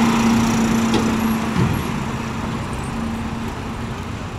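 Street traffic: a motor vehicle's engine hums steadily close by, its pitch dipping briefly about a second and a half in, over general road noise that slowly fades.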